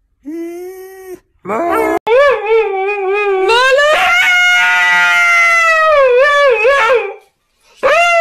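Two short whining calls from a dog, then a Siberian husky howling: one long howl of about five seconds that wavers up and down in pitch, breaks off, and starts again near the end.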